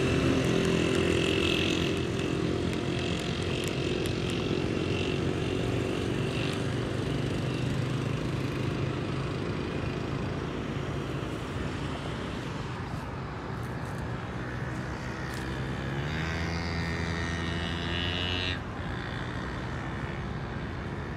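An engine running steadily. It rises in pitch about sixteen seconds in and falls away about two seconds later.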